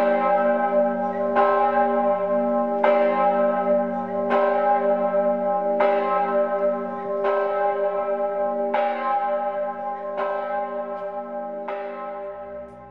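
A single large church bell tolling, one stroke about every one and a half seconds, each stroke ringing on into the next; the tolling fades down near the end.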